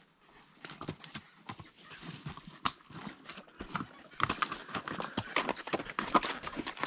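Pack horse's hooves clopping on a rocky trail in an irregular walking rhythm, getting louder about halfway through as it comes up close and passes.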